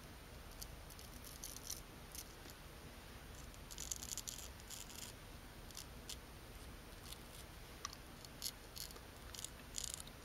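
Straight razor scraping through lathered stubble in short, faint strokes, with a quicker run of strokes about four seconds in.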